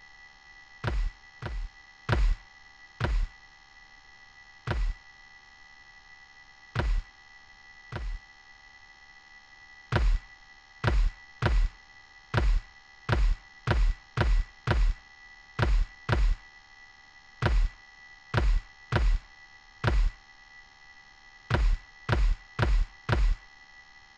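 Heavy thuds of something banging on a cupboard door, about twenty-five in all. They come irregularly, a second or two apart at first, then in quicker runs of two or three a second, over a steady high-pitched hum.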